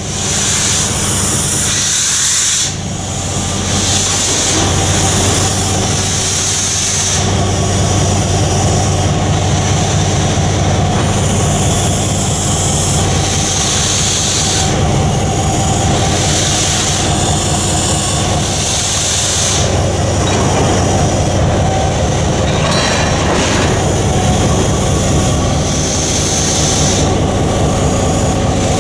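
Steam locomotives standing under steam: a steady low hum and rumble, with hissing steam that swells and fades several times.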